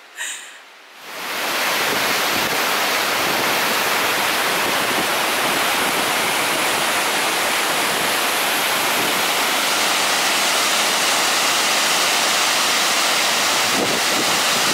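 Waterfall and whitewater rapids rushing, a loud, steady sound that fades in about a second in.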